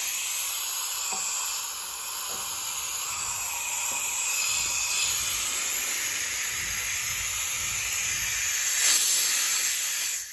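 Compressed air hissing steadily out of the open drain valve at the bottom of a Chiaperini MC 7.6/24L air compressor's tank, blowing out the water and dirty sludge that had collected inside. The blast swells briefly near the end.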